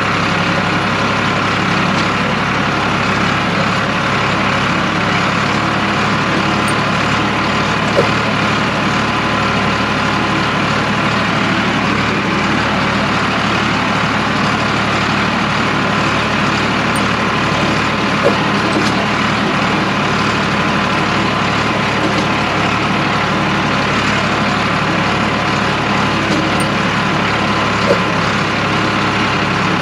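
Tractor diesel engine running steadily at an even speed, with a few faint clicks now and then.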